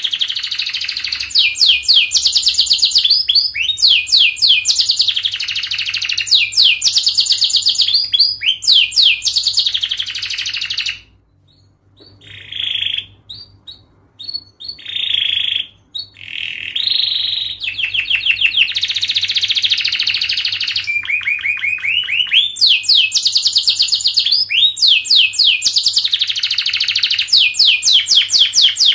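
Domestic canary singing a long, fast song of rapid trills and sweeping high notes, phrase after phrase. About eleven seconds in the song breaks off briefly, comes back in short phrases, then runs on in full.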